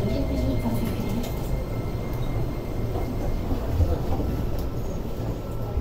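Steady low rumble and hum inside a Keio 8000 series commuter train car as it comes to a stop at the platform. A faint, steady high tone runs under it and ends about three and a half seconds in.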